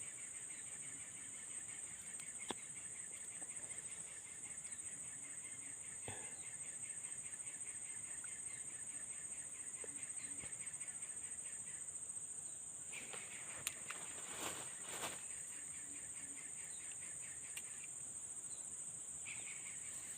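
Evening insect chorus: a steady high-pitched drone with a fast, pulsing trill beneath it, the trill taken for bird calls. A few soft knocks come about two-thirds of the way through.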